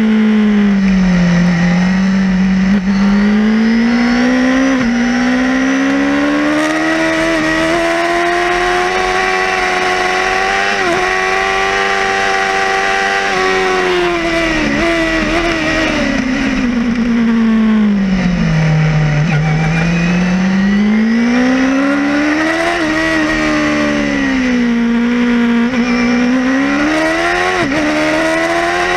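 Yamaha R6 600 cc inline-four race engine at full racing speed, heard from on board. Its note climbs through the gears with brief dips at each upshift, drops steeply through downshifts under braking about two-thirds of the way in, then rises hard again, over a steady rush of wind.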